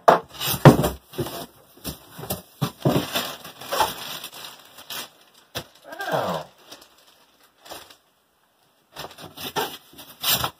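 Cardboard box and plastic wrapping rustling, crinkling and scraping as a gaming chair's plastic-bagged parts and foam packing sheet are pulled out of its shipping box. The handling comes in irregular bursts, busiest over the first few seconds and again near the end. A short sound falls in pitch about six seconds in.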